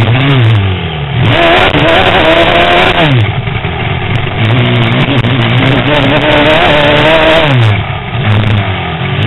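Motocross bike engine revving hard through a lap. The revs climb as it accelerates and fall sharply each time the throttle is shut off, clearly about three seconds in and again shortly before the end.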